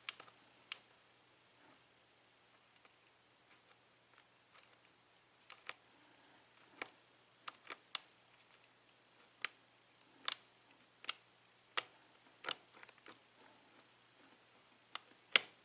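Short, sharp metal clicks at uneven intervals as a lock pick works the pin stacks of a Yale six-pin mortise cylinder lock during single-pin picking. The clicks are sparse at first and come about once a second from around five seconds in.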